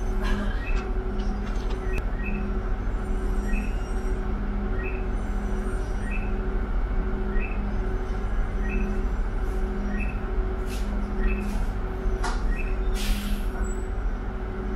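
City bus heard from inside, its engine and road noise rumbling steadily, with an electronic beep repeating about three times every two seconds. A short hiss comes about 13 seconds in.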